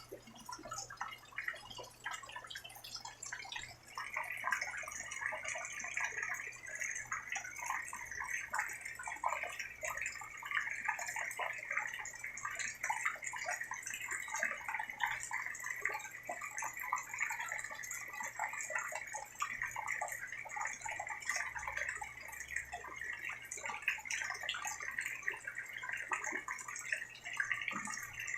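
Rain falling in a steady patter of close drips and splashes, growing heavier about four seconds in.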